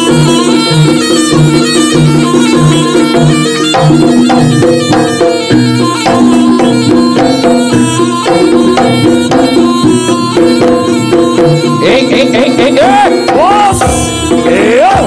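Live jaranan ensemble music: a reedy, shawm-like melody over a steady drum beat and gamelan percussion. Repeated rising, swooping notes join over the last few seconds.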